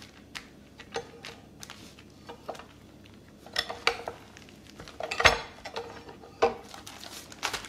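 Cast-metal tortilla press being closed over masa in plastic sheets, pressed and opened, its lid and handle knocking metal on metal with plastic rustling. Several light clicks and clanks, the loudest a little past the middle.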